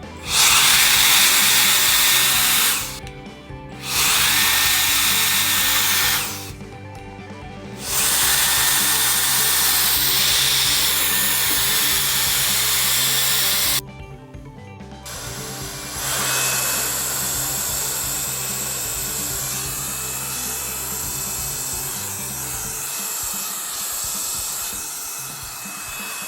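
Cordless rechargeable AR mini blower running: its fan rushes loudly in three bursts, switched on and off, then after a short pause runs on more quietly with a faint thin whine.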